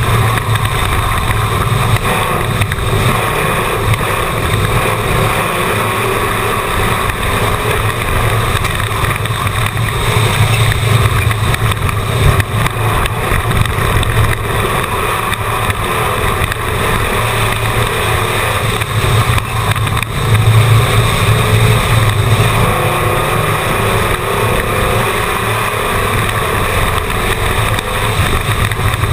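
Stock race car engine running hard under racing load, heard from a camera on the car's hood: a loud, continuous engine drone that swells and eases in level as the car works through the oval's turns.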